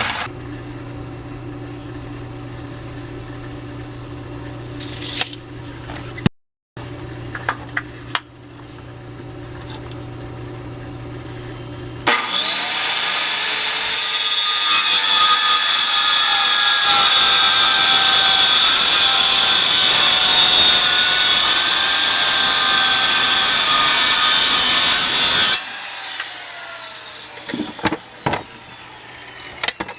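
An electric power tool spins up with a rising whine about 12 s in and runs loudly against wood, a sawing sound, for about 13 s before cutting off. Before it, a steady hum runs with a brief break, and a few sharp knocks follow near the end.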